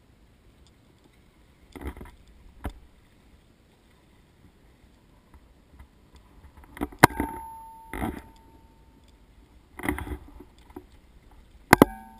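A few irregular sharp knocks and thuds on a fishing boat, the loudest about seven seconds in and near the end, one leaving a short metallic ring.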